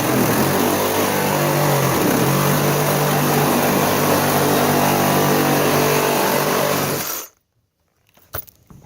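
Power saw running at a steady pitch while cutting through a refrigerator door's sheet metal and foam insulation, loud; it cuts off about seven seconds in, followed by a few small knocks.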